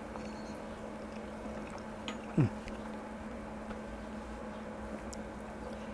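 A man's short, falling 'mm' of approval about two and a half seconds in, over a steady low background hum.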